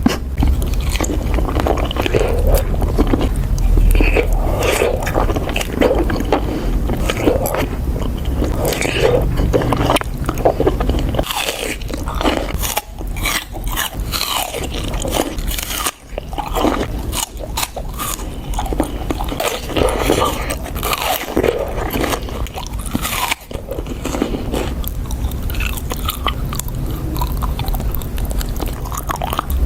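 Close-miked biting and chewing of fresh fruit: crisp bites and wet, crunchy chewing, one bite after another.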